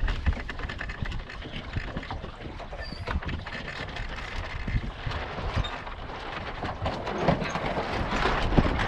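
Sailboat under sail: wind buffeting the microphone over the rush and slap of water along the hull, the water noise swelling louder about two seconds before the end.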